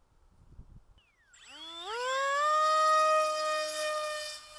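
Electric motor and propeller of a Reptile S800 V2 FPV flying wing whining up in pitch as the throttle comes up for the hand launch, then holding a steady high whine and fading near the end as the wing flies away.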